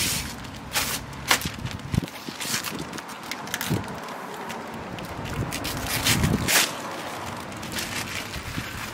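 Irregular clicks, knocks and short rustling scrapes of hand work on the headlight mounting, as the assembly and its bolts are put back.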